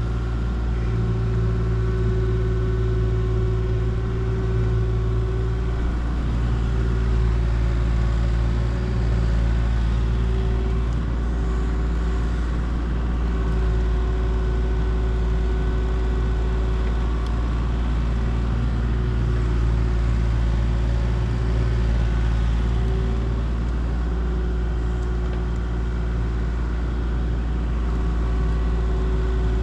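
Kubota SVL75-3 compact track loader's diesel engine running steadily, its pitch and load shifting slightly a few times.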